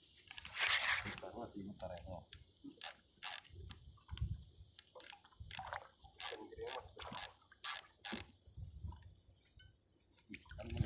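Spinning reel clicking and ratcheting in a string of short bursts, about one or two a second, as line is worked against a hard-pulling hooked fish, with a brief rush of noise just under a second in.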